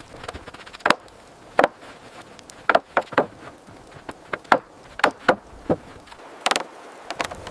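Wood being chopped or struck: about a dozen sharp, irregularly spaced knocks over a faint steady background hiss.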